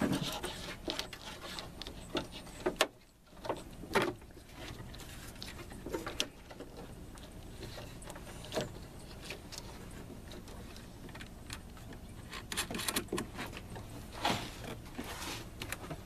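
Scattered clicks, taps and rustles of a heavy battery cable and its terminal hardware being handled and pulled into place in an engine bay, over a low steady background noise.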